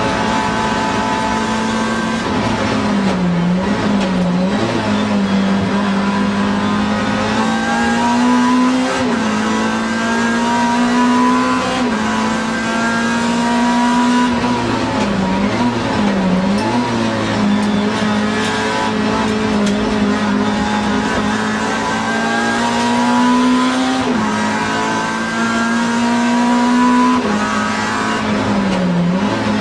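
Race car engine at full racing effort, heard from inside the cockpit. Its pitch climbs steadily along the straights and drops sharply with quick blips around three points (about 3 to 5 s in, 15 to 17 s in, and near the end), where it slows for corners.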